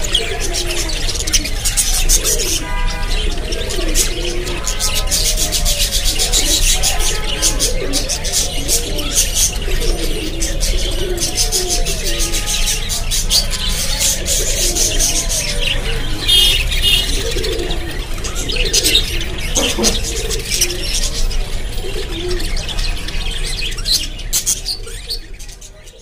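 A flock of budgerigars chattering and chirping in a cage: a dense, rapid stream of high chirps and clicks, with a lower wavering warble running underneath. It fades out near the end.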